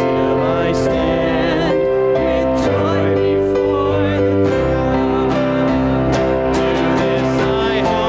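A hymn sung by a group of voices with electric keyboard accompaniment: held chords underneath and wavering sung notes on top, steady throughout.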